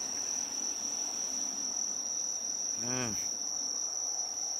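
A cat gives one short meow that rises and falls in pitch about three seconds in, over a steady high-pitched insect trill.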